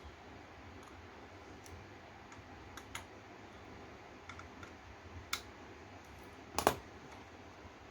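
Scattered small clicks and taps from handling a graphics card and its screws during reassembly, with a louder double click about six and a half seconds in.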